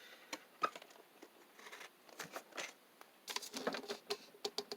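Light handling noise from die-cast toy cars and their packaging being picked up and moved: scattered small clicks and taps with brief rustles, coming in a quick cluster near the end.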